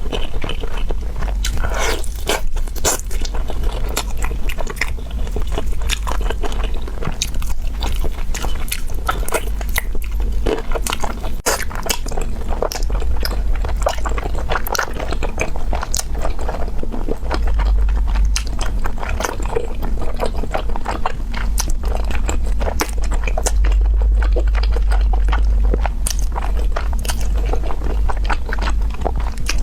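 A person biting and chewing an Orleans-style roast chicken leg: a dense, uneven run of short clicks and mouth noises over a constant low rumble.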